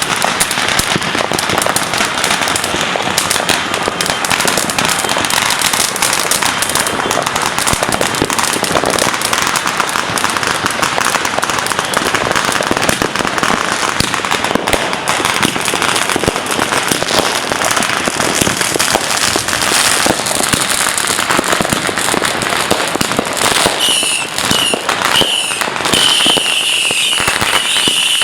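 Dense, continuous crackling of firecrackers and fireworks going off. A steady high whistle joins near the end.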